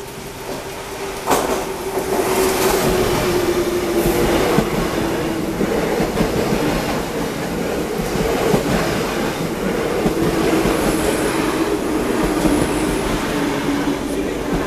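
Double-deck RER D electric train running along the platform close by, its wheels clattering over the rail joints. There is a sharp knock about a second in, and a steady whine slowly drops in pitch throughout.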